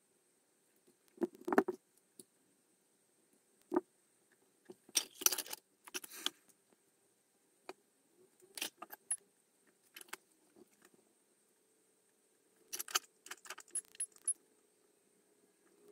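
Scattered sharp clicks, taps and short rattles of small tools and parts handled on a workbench, including side cutters working at an electric shaver's circuit board, over a faint steady hum.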